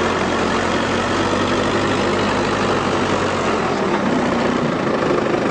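A vehicle engine idling steadily; its deepest hum drops away about four seconds in.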